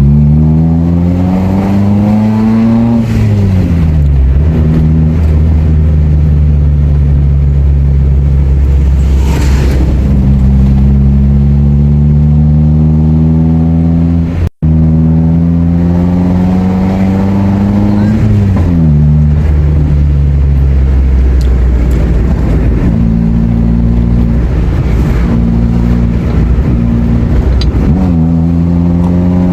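Maruti Suzuki Zen running on a newly fitted aftermarket exhaust and muffler, driving and accelerating. The engine note climbs and then drops sharply at each gear change, three times, and holds steady while cruising in between. The sound cuts out for an instant about halfway.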